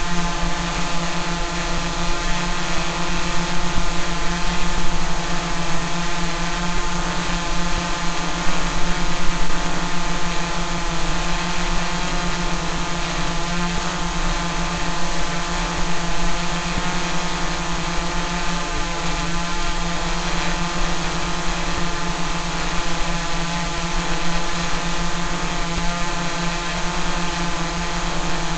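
Small quadcopter drone's propellers and motors hovering with a steady buzzing whine at an even pitch.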